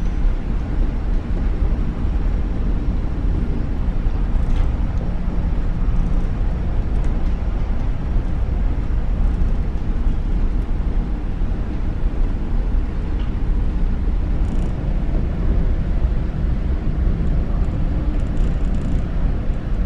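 Steady low rumble of a ferry's engines and hull vibration, heard from inside the ship's passenger accommodation, with a few faint clicks now and then.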